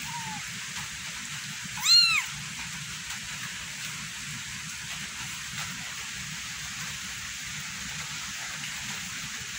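A young kitten meows once, about two seconds in: a short, high call that rises and falls in pitch. Behind it is a steady hiss of rain.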